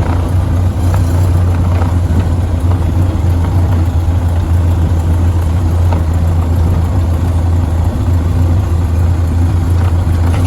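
Ford Model A's four-cylinder engine running steadily on the road, a low constant drone with a haze of rain and tyre noise over it.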